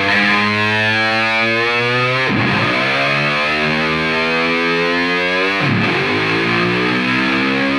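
Rock music with distorted electric guitar playing long held chords that change about every three seconds.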